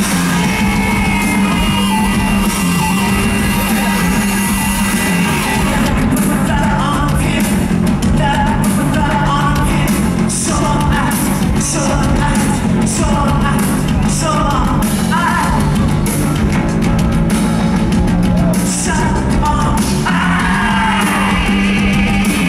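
Live rock band playing loud, with a steady low bass line; a male singer's voice comes in about six seconds in and carries on until near the end.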